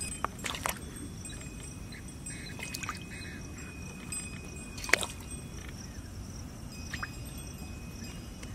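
A few separate sharp knocks and clicks from a knife and fish steaks being handled on a wooden cutting board, the loudest about five seconds in. Thin steady high tones run underneath.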